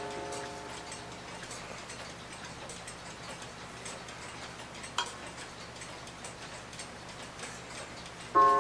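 Early-1900s New Haven Clock Co. mantel clock ticking softly. A sharp click comes about five seconds in. Near the end the gong is struck once and rings with several steady tones, and the tail of a previous strike fades out at the start.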